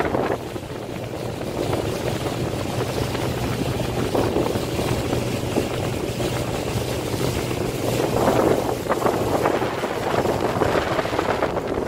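Water rushing and wind buffeting the microphone aboard an F101 foiling boat flying on its hydrofoils, with a steady low hum that fades out near the end. The rush swells louder about four seconds in and again around eight seconds in.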